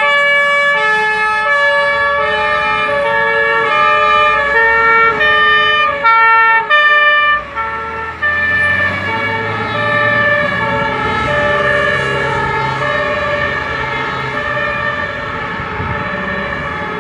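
Fire trucks' two-tone sirens alternating between two pitches. About seven seconds in, the clean alternation gives way to overlapping, smeared siren tones over a louder diesel truck engine rumble as the vehicles drive off.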